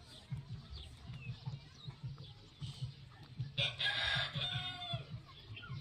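Rabbit chewing fruit with rapid, rhythmic crunching. A loud call of about a second, with falling pitches, cuts in just past halfway.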